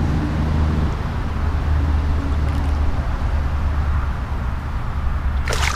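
Steady low rumble throughout. Near the end comes a brief burst of sharp splashing as a small tarpon thrashes at the side of the kayak.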